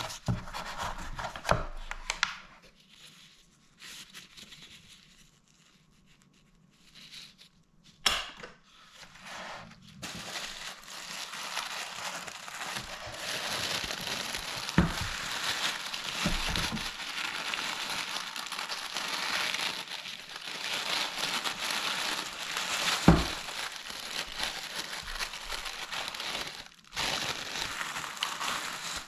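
Packaging being handled and unwrapped: a few scattered knocks and rustles, then from about ten seconds in a steady run of crinkling and crumpling, with a couple of louder knocks and a brief pause near the end.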